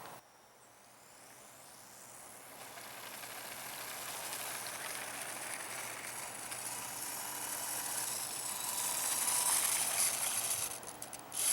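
Small electric motor and propeller of an ultra-micro RC warbird buzzing as it flies, growing steadily louder over several seconds as it comes in low. The sound breaks up briefly near the end.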